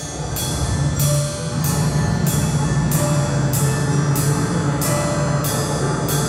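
Improvised ensemble music: a low steady drone under sharp, ringing strikes that repeat at an even pace, about three every two seconds, with a few short held notes in between.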